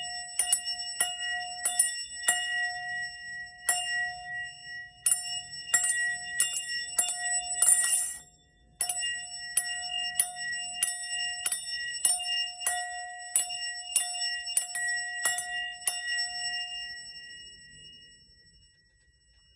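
A small bell rung over and over, about two strikes a second, each strike ringing with the same clear tones. The ringing breaks off briefly near the middle, then resumes, and dies away near the end, used as a sound-healing tool.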